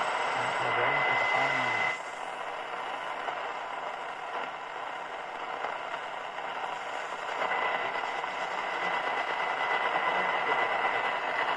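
Telefunken Bajazzo TS205 radio being tuned across the upper end of the AM medium-wave band. A faint station voice and a steady high whistle sit under static, then cut away suddenly about two seconds in to a hiss of static and weak signals. Another steady high whistle comes in around seven seconds in.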